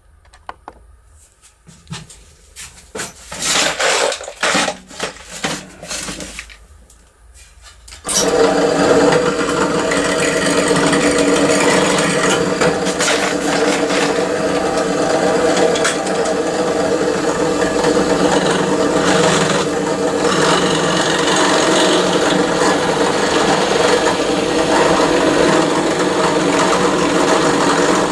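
Small metal window-handle parts knock and clatter as they are handled. About eight seconds in, a power tool starts up and runs steadily, grinding away metal to make a handle part deeper.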